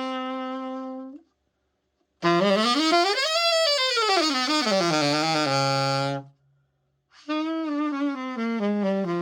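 Yamaha YAS-82Z alto saxophone being played after a full overhaul. A held low note stops about a second in. After a short silence comes a phrase that climbs quickly and falls back, then after another pause a line of notes stepping downward.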